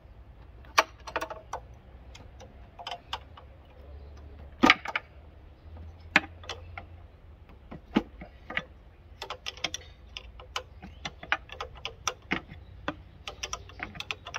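Wrench clicking and clinking on the metal fittings of the rigid diesel fuel injection lines as they are undone: irregular sharp metallic clicks, with one louder clank about five seconds in.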